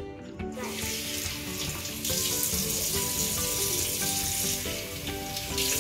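Water from a bathroom tap running into a sink, starting about half a second in and growing louder about two seconds in, as it is cupped in hands for rinsing the mouth after tooth-brushing. Background music plays underneath.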